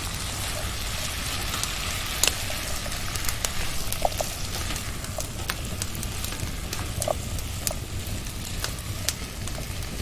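Beef and vegetables sizzling in a pot over a wood campfire while being stirred, with many sharp pops scattered through the steady hiss.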